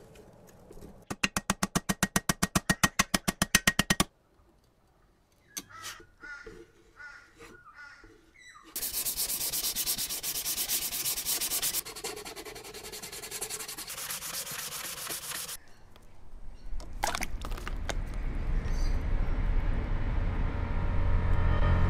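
A fast run of short rasping strokes, about a dozen a second, lasting three seconds. After a pause comes hand sanding with sandpaper on a tricycle mudguard, a steady scratchy rubbing that turns quieter about twelve seconds in. A low rumble builds up near the end.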